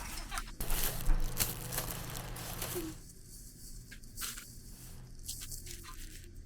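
Rustling and crinkling with light clicks of small objects being handled, busier for about the first three seconds, then quieter with scattered clicks.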